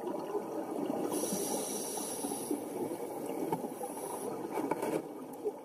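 Underwater sound of water: a dense, muffled crackling and bubbling that fades out near the end.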